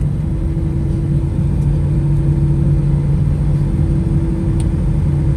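Airbus A320 cabin noise during taxi: a steady rumble from the engines at low power, with a constant low hum.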